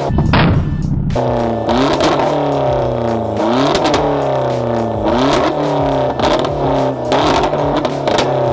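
Hyundai Genesis Coupe exhaust being revved hard, aimed at a wine glass: a heavy blast in the first second, then the engine note shooting up and sinking back about every two seconds, with crackles from the tailpipe.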